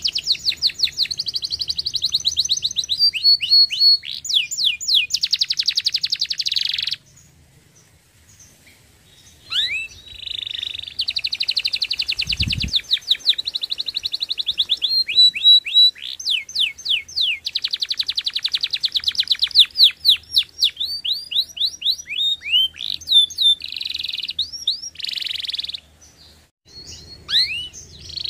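Domestic canary singing: long song phrases of fast trills and rapidly repeated downward-sweeping notes, broken by a short pause about a quarter of the way in and another near the end. A brief low thump sounds a little before halfway.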